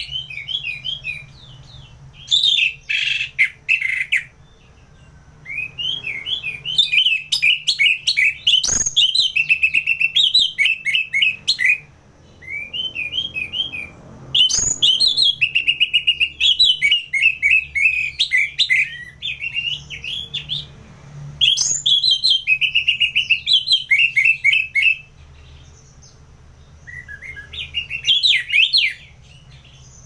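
Orange-headed thrush singing in long, fast runs of high chirping and warbling notes, broken by short pauses, over a steady low hum.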